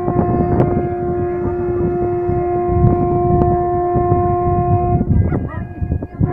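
A boat's horn sounds one long, steady note that cuts off about five seconds in, over a rough low rumble.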